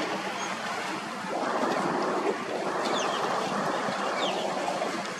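Wind and water ambience by open water: a rushing noise that swells and eases every second or so, with a few short high bird chirps and a faint steady low hum.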